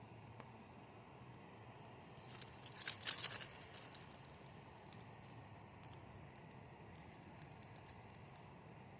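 A brief burst of crinkling and rustling from something being handled, lasting about a second, starting a little over two seconds in, with a few faint scattered clicks over a low steady background.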